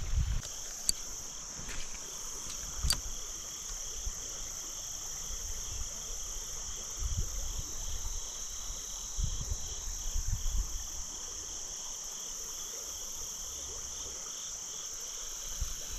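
Steady, high-pitched chorus of insects, with a fainter pulsing trill lower down. A couple of sharp clicks come in the first few seconds, and a few soft low thumps occur here and there.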